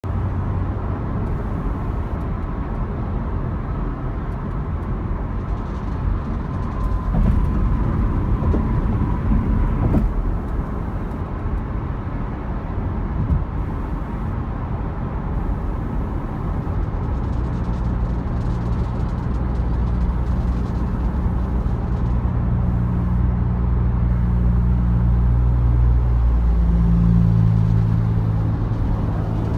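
A 2015 Corvette Stingray's 6.2-litre LT1 V8 running under very light throttle with a rattling noise, which the owner traced to a failing belt tensioner. The engine note grows stronger in the second half and steps up in pitch near the end.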